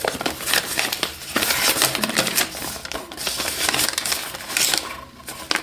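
Paper instruction leaflet being handled and unfolded: irregular rustling and crinkling with many small clicks, easing off near the end.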